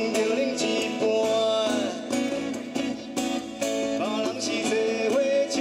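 Live acoustic music: a man sings over a strummed acoustic guitar, with a second guitar along.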